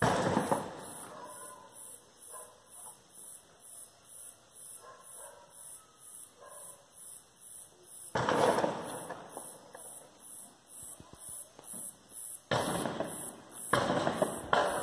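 A high-pitched electronic alarm beeping steadily, about two beeps a second. Loud sudden noises break in at the start, again about eight seconds in, and twice near the end.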